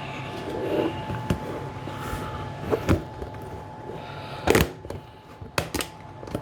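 Scattered knocks and clicks from the detergent drawer of a Hoover AXI washer dryer being handled, with the loudest knock about four and a half seconds in, over a faint steady hum.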